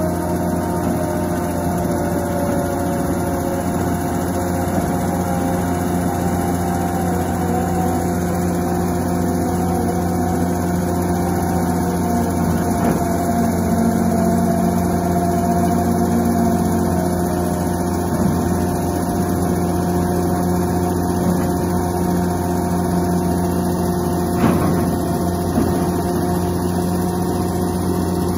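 CRRC TR220 rotary drilling rig's diesel engine running steadily, with a single sharp knock about twenty-four seconds in.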